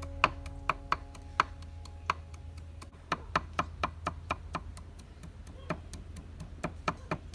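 Knife chopping on a thick wooden chopping board: sharp, irregular knocks about three to four a second as the wide blade strikes the board.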